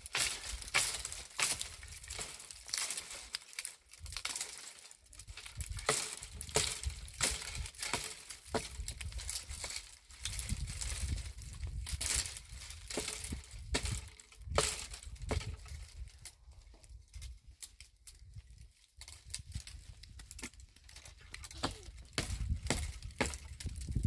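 Irregular crackling and clicking, like something being crumpled or handled, with a low rumble joining about ten seconds in.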